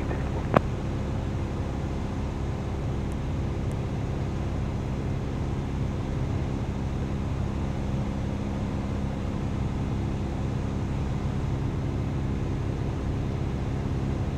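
Light single-engine airplane's piston engine and propeller droning steadily in the cockpit during a climb, with one sharp click about half a second in.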